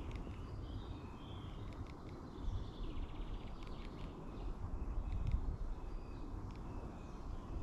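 Small birds chirping in short calls, with one quick trill about three seconds in, over a steady low rumble.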